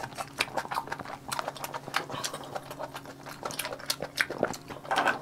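Close-miked chewing: a dense run of small wet clicks and smacks from a mouthful of food being eaten.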